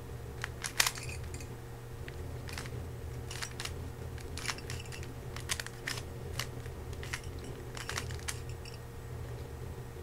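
A 3x3 speed cube being turned fast by hand: quick, irregular clicks and clacks of its plastic layers snapping round, in short flurries, the loudest about a second in. A low steady hum runs underneath.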